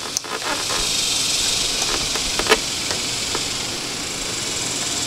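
Steady background hiss, with a few faint clicks and taps as fingers work a small plastic T-tap wire connector; the clearest click comes about two and a half seconds in.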